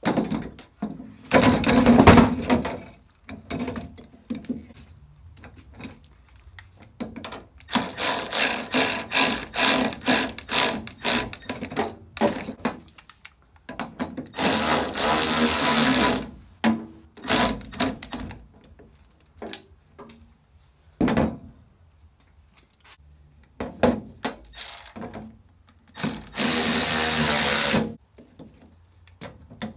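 Red cordless ratchet's motor running in stop-start bursts as it drives bolts. There is a run of a couple of seconds near the start, then a string of short trigger pulses, then two steady runs of about two seconds each, with brief blips between.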